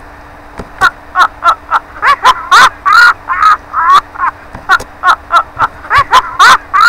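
A baby laughing: a long run of short, high-pitched giggles, a few each second.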